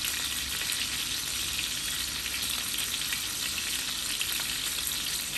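Food frying in hot oil in a pan, a steady, even sizzle.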